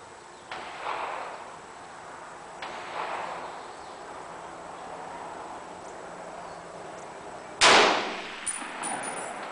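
Two fainter sharp bangs with short echoing tails sound about two seconds apart near the start. Then comes a single loud M-1 Garand rifle shot with a brief echo, followed by a few light clinks.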